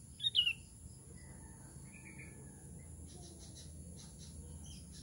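Sooty-headed bulbul giving a short, loud two-note call about a quarter second in, then a softer warble about a second later. A steady high insect whine runs underneath.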